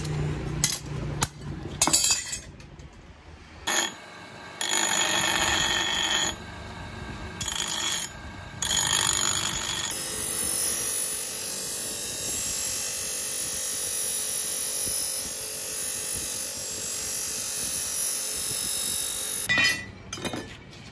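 Bench grinding wheel grinding a forged steel knife blade made from an aircraft bolt, shaping it before hardening. It runs in several short passes, then one long steady pass, with a high ringing tone over the grinding. A few metal knocks come in the first couple of seconds.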